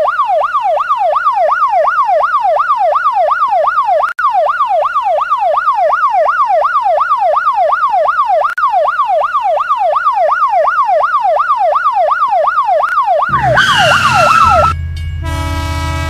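Electronic ambulance siren, a fast up-and-down wail repeating about three times a second. About thirteen seconds in it gives way to a low rumble and a train horn.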